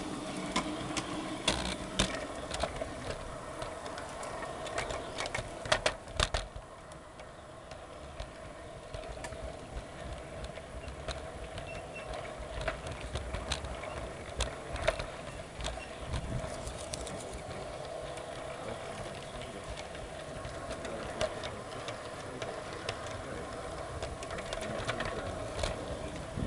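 G-scale garden-railway train running on its track: a steady motor-and-gear hum, with irregular clicks of the wheels over rail joints and points. There is a cluster of louder clicks about six seconds in.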